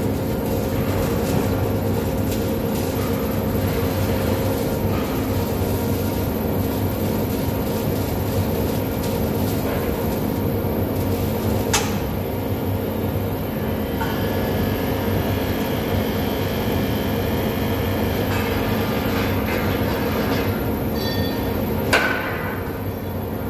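Steady drone of machinery running in a large steel fabrication workshop, with a constant hum under it. Two sharp knocks stand out, one about halfway through and one near the end.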